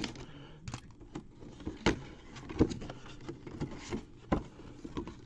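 A cardboard hobby box being opened and handled: irregular taps, scrapes and rustles as the sealed box is opened and a stiff white cardboard insert is slid out.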